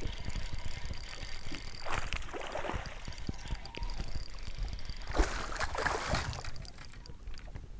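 Water splashing and sloshing beside a fishing boat, with louder surges about two seconds in and again around five to six seconds in.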